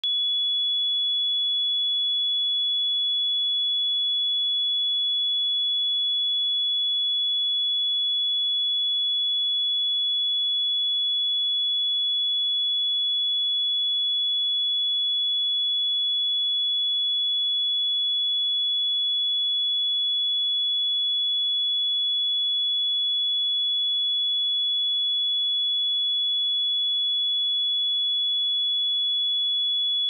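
A pure 3398 Hz sine-wave test tone, one steady high-pitched beep with no change in pitch or loudness.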